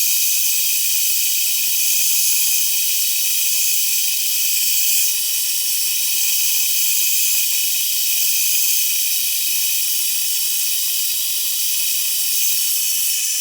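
Machine tool cutting aluminium, running steadily with a high whine and hiss.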